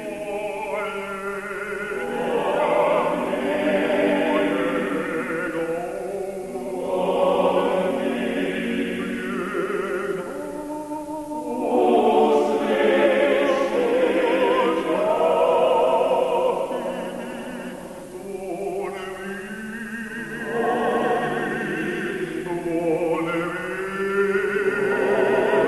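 A choir singing a slow chant in long held phrases, each lasting several seconds and separated by short breaths.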